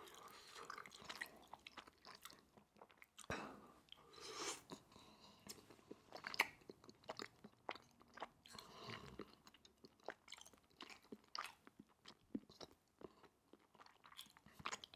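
Faint, close-miked chewing of a mouthful of food: soft wet mouth clicks and smacks at an uneven pace.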